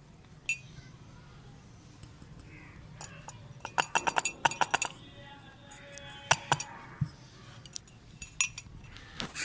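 A spoon clinking against a glass dish: a single clink, then a quick run of about ten clinks a few seconds in, then scattered single clinks.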